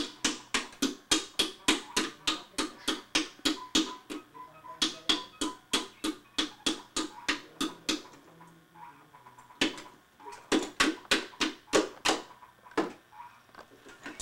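A baby's toy rattled or struck in a steady rhythm, about four sharp clacks a second, breaking off about eight seconds in and starting again a moment later.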